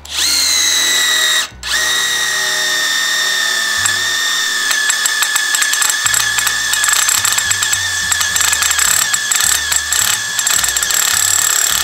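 HiKOKI WH12DD 10.8 V cordless impact driver drilling an 8 mm hole through 6 mm steel plate with a twist bit. The motor whines as it spins up, stops briefly about a second and a half in, then runs on. From about four seconds in, the impact mechanism hammers in a fast, uneven rattle as the bit loads up in the steel.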